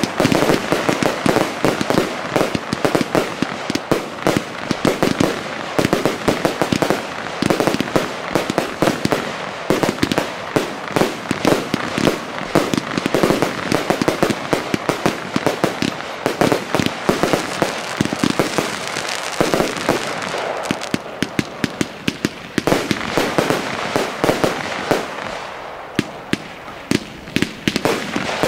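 Aerial fireworks firing and bursting in rapid succession: a dense, unbroken barrage of launches, bangs and crackle.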